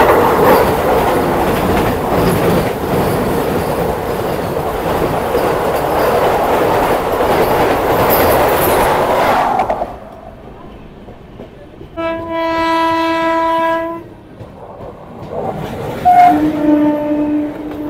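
Express train running at speed, a loud rush and clatter that drops off abruptly about ten seconds in. A train horn then sounds one steady blast of about two seconds, and sounds again briefly near the end.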